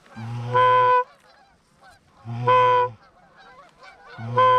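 Mouth-blown waterfowl call sounded three times: long, loud, steady notes about two seconds apart, calling to birds in flight to bring them in. Faint, wavering bird calls can be heard between the notes.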